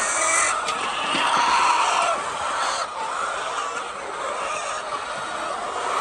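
A flock of hens clucking and calling continuously.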